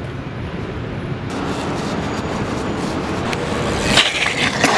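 Steady outdoor street noise with traffic, then about four seconds in a BMX bike clatters onto a concrete ledge with a few sharp knocks.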